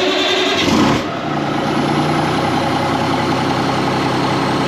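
ERF EC11 lorry's Cummins M11 straight-six diesel just after starting: it runs higher for about the first second, then settles into a steady idle.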